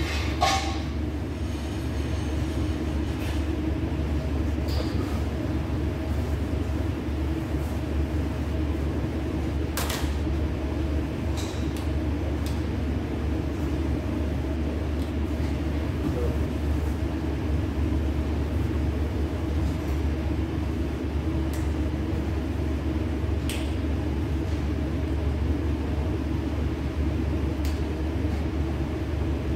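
A machine running with a steady low hum, and a few faint clicks and knocks over it.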